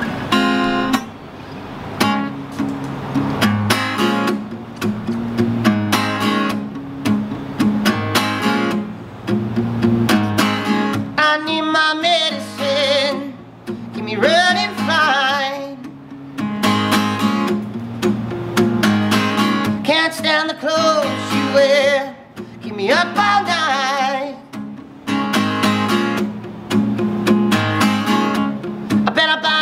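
Solo acoustic guitar strummed in a steady rhythm as a song's opening. After about ten seconds, a man's voice sings phrases over it, with guitar-only stretches between them.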